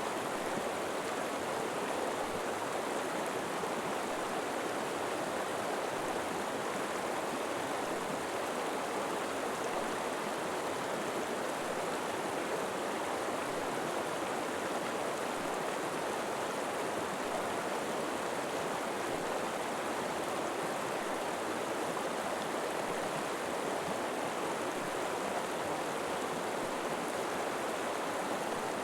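River water flowing steadily over rocks, an even rushing with no separate splashes or other sounds.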